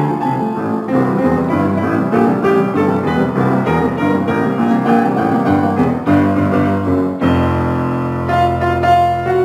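Grand piano played four hands, a piece of quick successive notes; about seven seconds in a low chord is held while higher notes continue over it.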